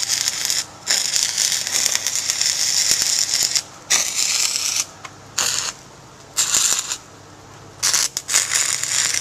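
Stick-welding arc from a Lincoln SA-200 welder burning on steel pipe, crackling and sizzling in bursts. The arc breaks off and is struck again several times, with short quiet gaps between.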